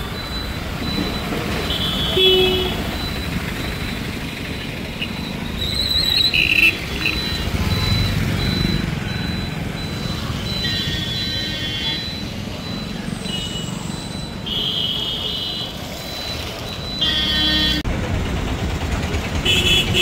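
Road traffic on a flooded street: engines running in a steady low rumble, with short vehicle horn toots heard several times.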